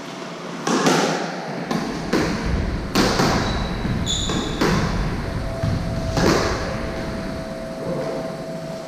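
Squash rally: sharp, echoing smacks of the ball off rackets and the court walls, about eight hits over five seconds, with a couple of brief high sneaker squeaks on the wooden floor about four seconds in. The hits stop about six seconds in as the rally ends.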